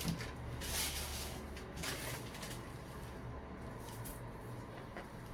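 Faint rustling and handling noises, a few soft scrapes over a few seconds, over a low steady hum.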